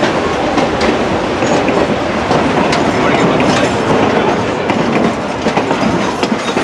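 Narrow-gauge railroad passenger coach rolling along the track, heard from inside the open-windowed car: a steady, loud rumble of steel wheels on rails with irregular clicks and clacks over the rail joints.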